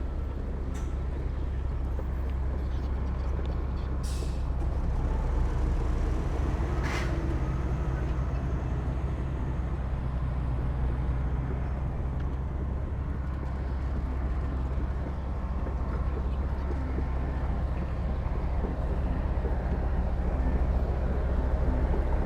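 Heavy diesel earthmoving machinery, a bulldozer and dump trucks, running steadily with a low drone. There is a short hiss about four seconds in and a brief sharp sound about seven seconds in.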